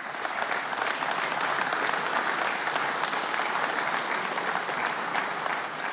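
People applauding steadily, many hand claps blending into one even sound.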